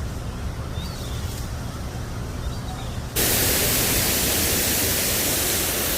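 Low wind rumble, then about three seconds in a sudden switch to the steady, loud rushing of a large man-made waterfall.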